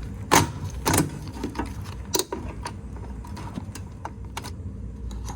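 Craftsman garage door opener's slackened drive chain clanking and rattling against the rail as it is worked back onto the track by hand, with a few sharp metal knocks, the loudest a third of a second and a second in.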